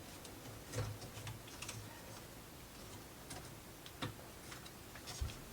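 Light, irregular clicks and taps of small wooden plywood model parts being handled and fitted together.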